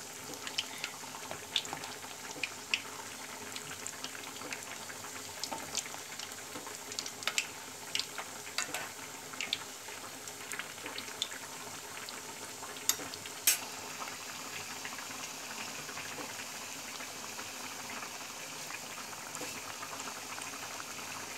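Breaded cutlets deep-frying in oil in a steel kadai over low heat: a steady sizzle with scattered pops and crackles. Two sharp clicks come a little past the middle.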